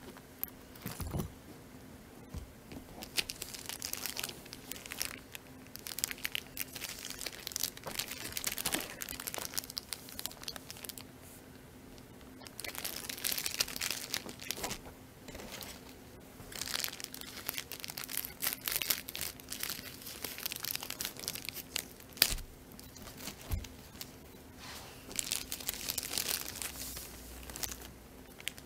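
Plastic packaging crinkling and tearing in spells as a plastic-bagged package and its foam wrap are handled and opened, with one sharp click about three-quarters of the way through. A faint steady hum runs underneath.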